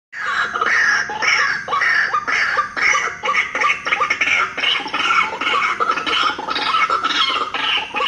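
A bird lure sounding: harsh bird calls repeated in a steady rhythm, about two a second.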